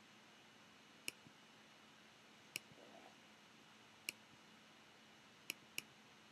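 Near silence with five faint, sharp clicks at uneven intervals, the last two close together.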